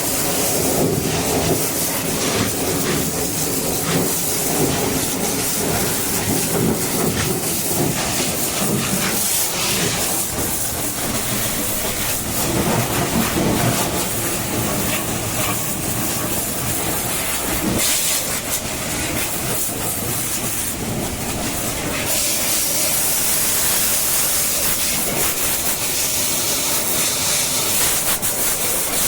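A high-pressure water jet hissing as it sprays a JCB 3DX backhoe loader, with an engine running steadily underneath. The hiss grows stronger near the end.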